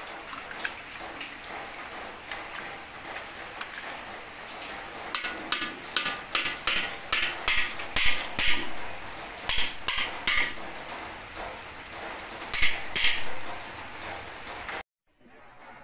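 A metal spoon clinking and scraping against a can of liver spread and the side of a large metal wok over a steady sizzle of simmering pork stew. The clinks come thick and fast through the middle of the stretch.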